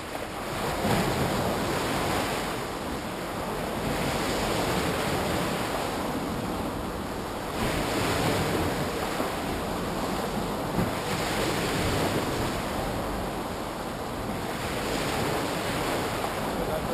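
Sea waves breaking and washing in, swelling and easing every few seconds, with wind buffeting the microphone.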